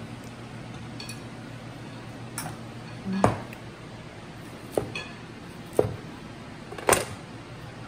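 Plates and utensils clinking at the table: about six separate sharp clinks spread over several seconds, over a low steady hum.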